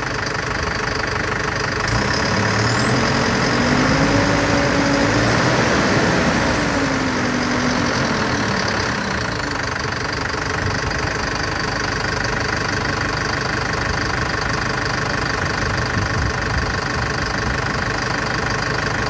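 Bucher CityCat 5000 street sweeper's engine running steadily. Between about two and nine seconds in, the sound gets a little louder and a tone climbs and then falls back.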